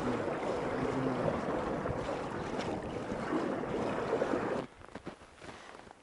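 River water welling up through an open hole in frozen river ice, gurgling and rushing steadily around a small ice 'volcano', with some wind on the microphone. It cuts off abruptly about four and a half seconds in.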